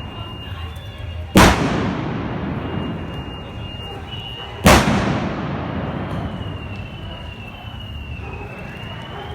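Two blank gunpowder shots from trabuc blunderbusses, about three seconds apart. Each is a very loud bang with a long ringing decay. A faint high, wavering tone runs under the second half.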